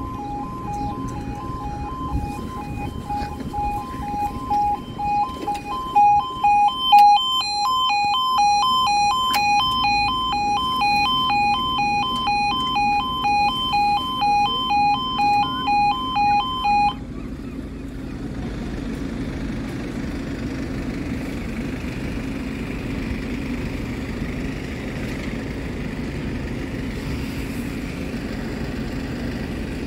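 Level crossing audible warning alarms sounding, pulsing about twice a second, with a second, higher-pitched alarm joining about six seconds in. Both alarms cut off together a little over halfway through, leaving a steady low engine hum.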